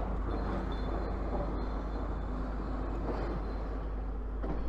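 Steady outdoor street background of distant traffic, an even rumble with no distinct events.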